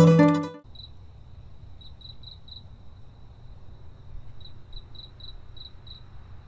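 Plucked-string music ends about half a second in. A cricket then trills on a steady high note, swelling in short pulses, over a faint low rumble.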